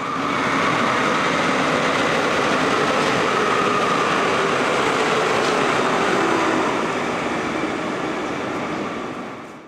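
A train passing on the tracks directly below in a concrete cutting, a steady rumble of wheels on rail with a faint whine over it. It swells up within the first second and fades away near the end.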